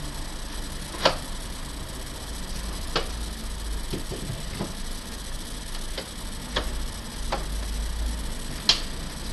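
Scattered sharp plastic clicks and knocks, about eight of them at uneven intervals, as a capsule coffee machine is handled, over a steady low hum.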